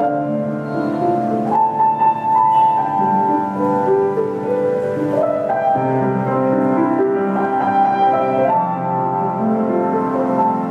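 Kawai GM-2 baby grand piano being played: a slow passage of chords under a melody line, with notes held and ringing into one another.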